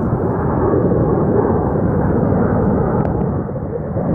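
Formation of four jet aircraft flying overhead: the jet engines make a loud, steady rumble with no distinct pitch.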